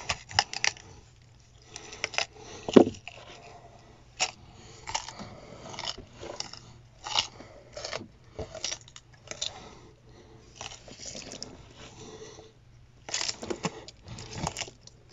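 Gory horror sound effect of a creature eating its prey: irregular wet chewing and crunching, with sharper crunches about three seconds in and again near the end, over a steady low hum.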